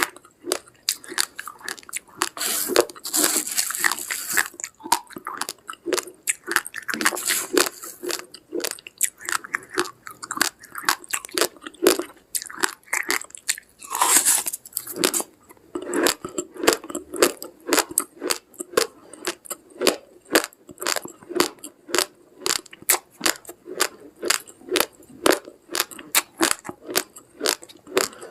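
Uncooked rice grains crunched between the teeth in steady, close chewing, about two crunches a second, with a few longer crackling stretches along the way.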